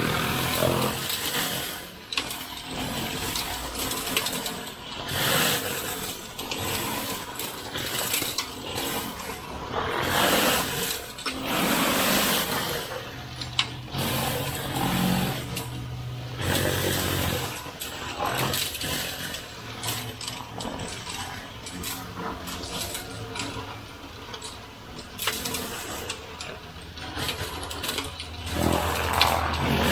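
A pump-driven soft-wash sprayer running with a low steady hum, as the cleaning solution hisses from the nozzle in repeated surges every second or two.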